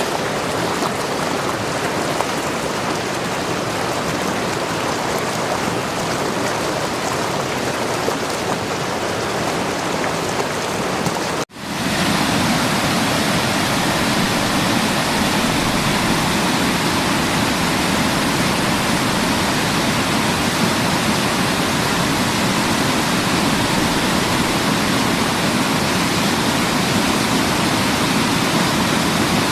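Torok Falls waterfall, water pouring in a steady rush of noise. There is a brief dropout about eleven seconds in, after which it is louder and deeper.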